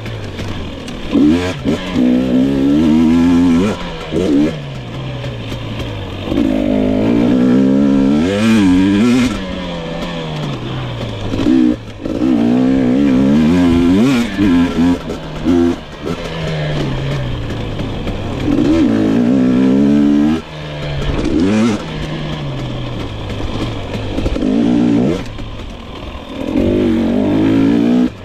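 2022 GasGas EX 250 two-stroke engine under a rider's throttle, revving up hard and dropping back again and again, with brief chops in loudness every few seconds as the throttle is closed.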